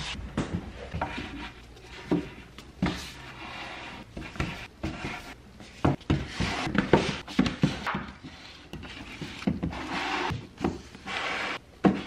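Books being handled and set onto an IKEA Billy bookcase shelf: a string of irregular knocks as they are put down, with scraping and rustling as covers slide against the shelf and each other.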